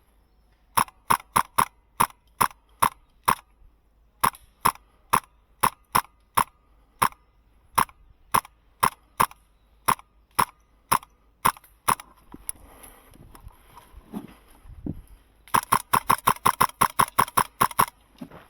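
HPA-powered MK12 airsoft rifle firing: strings of sharp single shots, a few a second, then a fast string of about six shots a second in the last few seconds.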